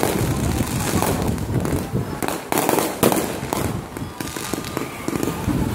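Fireworks being launched and bursting overhead: a string of sharp bangs and crackles, with the loudest bang about three seconds in.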